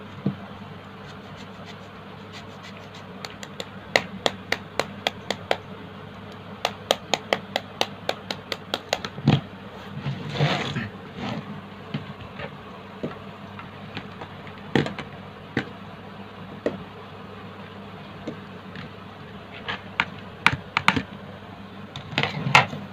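Cheese being grated on a small stainless-steel flat grater over a plastic bowl: a run of sharp clicks and taps, about two a second, as the metal grater knocks against the bowl. There is a brief scrape about ten seconds in, and more scattered taps near the end.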